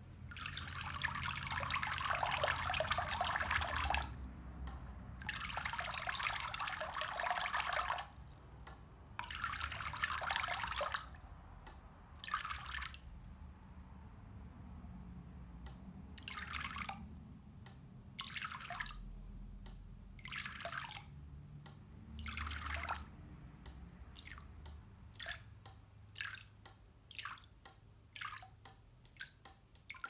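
Water jets of an Arduino-controlled fountain squirting into a metal bowl of water, switching on and off in a timed sequence. Several long splashing spurts come first, then shorter ones every couple of seconds, and near the end a quick run of short spurts and drips.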